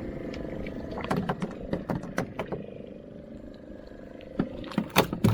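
Fishing boat's engine droning steadily, with a run of sharp knocks and thumps from about a second in, the loudest about five seconds in.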